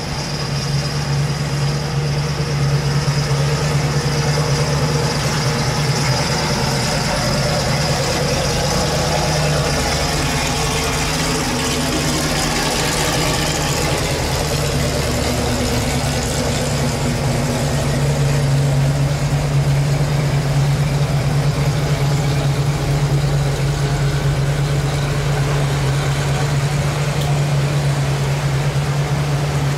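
Classic American cars' engines running at low speed as the cars cruise slowly past one after another, with a steady low engine drone throughout.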